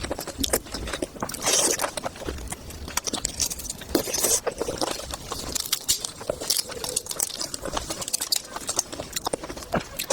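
Close-miked eating sounds: irregular wet chewing and mouth clicks as seafood is eaten.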